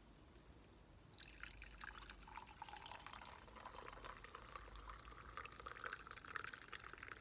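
Fresh coffee poured from a French press into a cup, starting about a second in; the pitch of the pour creeps slowly upward as the cup fills.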